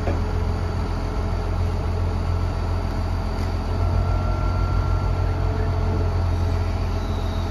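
Barge-mounted mobile crane's engine running with a steady low drone and hum while the crane holds and lowers a boat in its slings.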